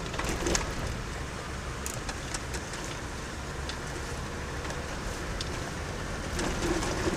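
Car driving on a rough off-road track: steady engine and tyre rumble with scattered short knocks and rattles.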